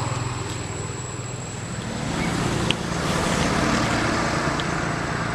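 Steady low hum of a motor vehicle engine, growing stronger about two seconds in, with a single short click a little after halfway.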